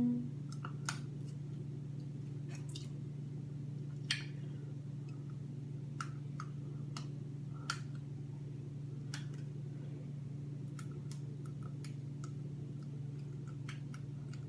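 A steady low hum, with light clicks and taps scattered through it.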